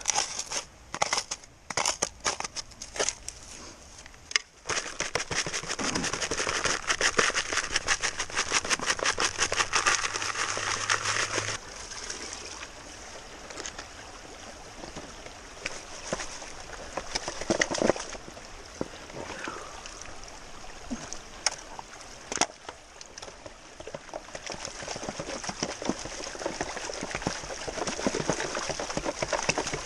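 Gold pan of creek gravel being worked in the water. At first a few separate clacks of stones, then several seconds of fast, dense rattling of gravel as the pan is shaken, which stops abruptly. After that, water sloshes and swirls in the pan, with an occasional click of a stone.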